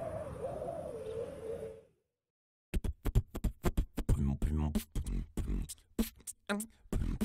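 A wavering tone sliding downward over hiss fades out about two seconds in. After a short silence, beatboxing starts: a fast run of mouth-made drum hits with some voiced sounds.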